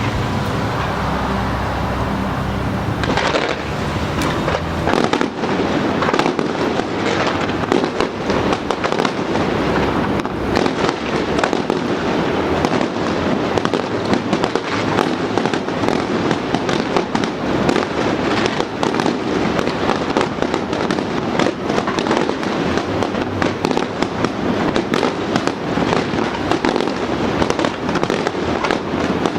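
Fireworks display: a dense, continuous crackle of many rapid small pops that thickens a few seconds in.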